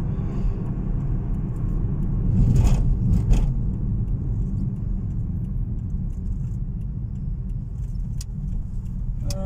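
Car-cabin road noise: the steady low rumble of the car's engine and tyres while driving, with a couple of brief clicks or rattles about three seconds in.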